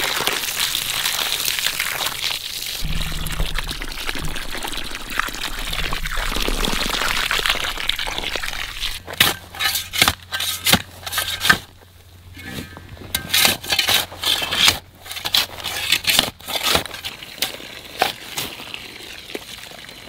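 Water from a garden hose pouring steadily into a dug earth basin around a young apple tree. About nine seconds in, this gives way to a hoe chopping into the dirt in a string of irregular strikes.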